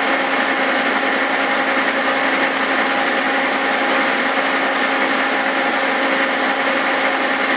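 Cincinnati horizontal milling machine running steadily as a form cutter climb-mills splines into a 4340 steel axle shaft, throwing chips. It makes an even machine hum with a few held tones over a constant cutting hiss.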